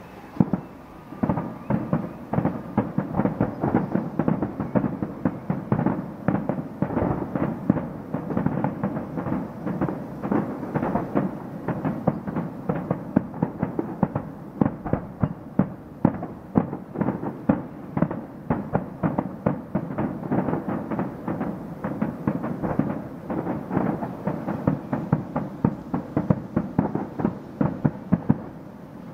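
Fireworks display: an unbroken barrage of sharp bangs and bursts, several a second, starting about half a second in after a short lull.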